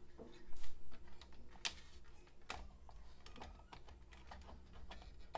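Irregular plastic clicks and taps as a power cord's plug is handled and pushed into the socket on a VIVOSUN LED grow light's driver box. The loudest knocks come about half a second in.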